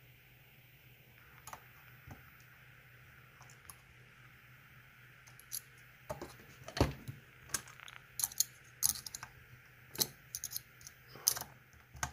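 A lock pick and tension wrench work the security pins of a split-core puzzle lock, making small metallic clicks and scrapes. The clicks are sparse at first and come thick and irregular from about five seconds in.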